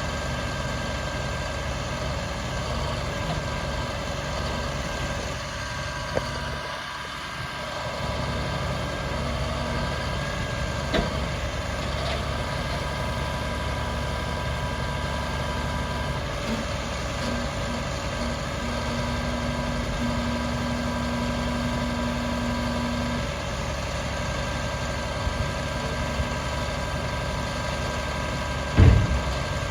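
Turbo-diesel truck engine, a MaxxForce DT inline-six, idling steadily. A single thump is heard near the end.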